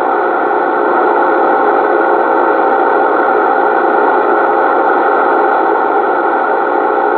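CB radio receiver putting out steady, loud static, a band-limited rush with a faint steady tone in it, as from an open channel or a station keyed up without talking.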